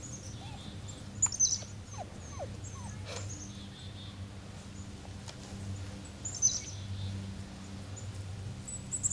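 Samoyed puppies playing and giving short, high-pitched yips and squeaks, loudest about a second in and again past the middle, over a steady low hum.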